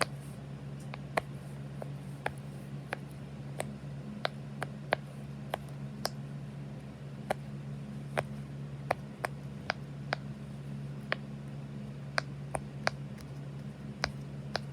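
Silicone pop-it fidget toy being pressed bubble by bubble: sharp, irregular pops, about one or two a second. A steady low hum runs underneath.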